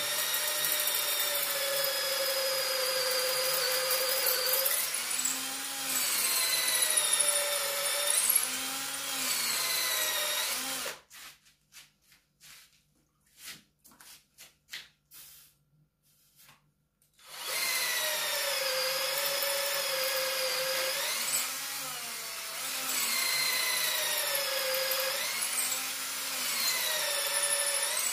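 Electric drill with a 4.2 mm bit drilling holes for a stove door's mounting nails. Its whine sags in pitch as the bit bites and picks up again. It stops for about six seconds around the middle, with a few light knocks, then drills again.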